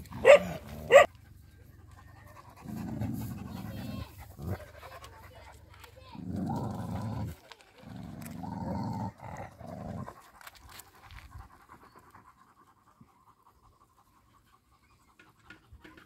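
Dogs giving two sharp barks about a second apart, then three low growls of a second or so each, fading to quiet in the second half.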